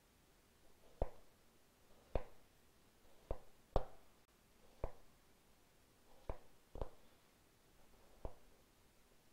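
Chef's knife cutting through potato sticks and striking the cutting board: about eight separate knocks, roughly one a second, as the sticks are diced into cubes.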